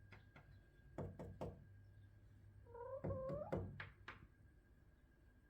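Quick knocks on a hard surface, three about a second in and three more after the middle, with a pet chicken giving one short call that rises slightly, between the two sets of knocks.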